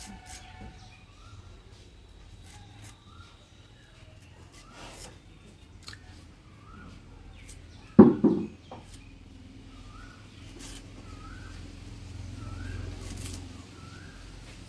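A bird chirping over and over, a short rising note about once a second. About eight seconds in, one loud, sudden sound cuts in briefly.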